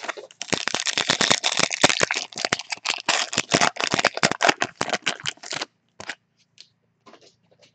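Foil wrapper of a 2018 Panini Unparalleled football card pack crinkling as it is torn open and crumpled, a dense, rapid crackle that stops about two-thirds of the way through. A few light clicks follow near the end.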